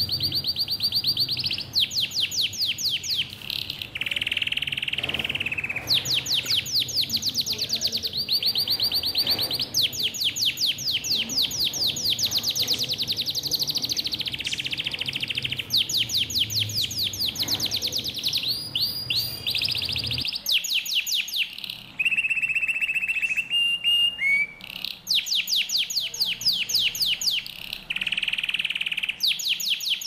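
Budgerigars chattering: long runs of fast, evenly repeated high chirps with a few longer held notes between them.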